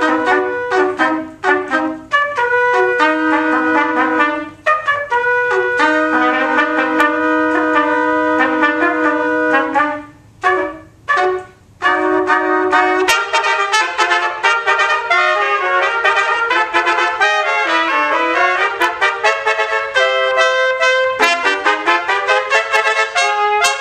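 Three trumpets playing a trio in harmony, mostly long held chords. About ten seconds in they break into a few short, separated notes, then carry on with quicker-moving lines.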